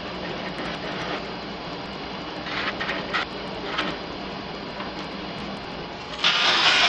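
Wood lathe running with a steady motor hum while a gouge cuts the spinning bowl bottom, scraping in short bursts a few seconds in. About six seconds in, sandpaper wrapped on a stick is pressed against the spinning wood, giving a much louder, steady rasping hiss.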